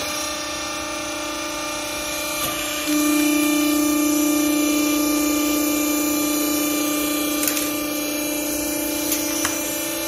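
Hydraulic power unit of a vertical used-clothing baler starting up and running with a steady hum while the press plate rises and the bale is ejected. The hum gets louder and a little lower about three seconds in as the pump takes up load, with a few light clicks.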